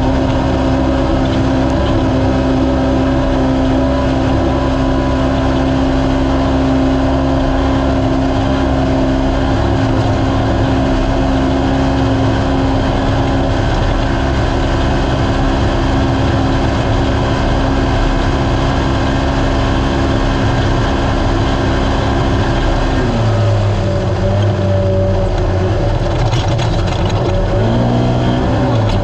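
Naturally aspirated race UTV engine running hard at high, steady revs. About 23 seconds in the revs drop to a lower pitch, and they climb again near the end.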